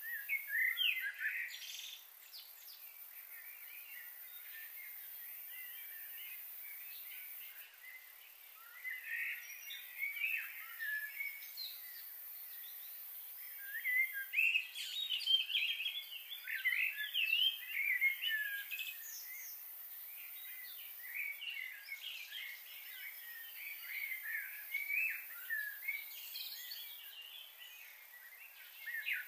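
Small birds chirping and calling, many short overlapping chirps, busiest around the middle.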